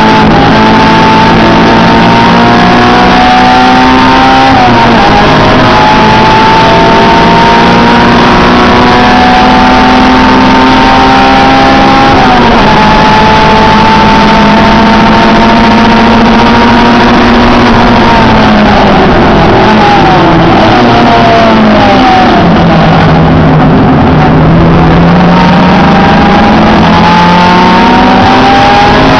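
Honda Integra Type-R's four-cylinder engine heard from inside the cabin at racing speed. It climbs through the revs with two sharp drops for upshifts, then falls in several steps about two-thirds of the way in, as for braking and downshifting, and climbs again near the end.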